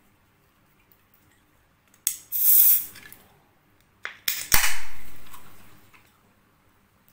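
Ring-pull aluminium can of carbonated Sting energy drink being opened in two stages: each time a sharp click of the tab, then a hiss of escaping gas, the second hiss longer and fading away.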